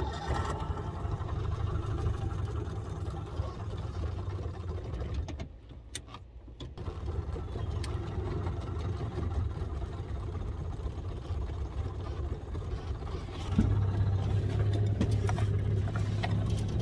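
1991 25 HP Mercury two-stroke outboard motor running just after a start, on its first run after sitting idle through the cold. It dips for about a second around five seconds in, picks up again, and gets louder about three seconds before the end as the boat gets moving.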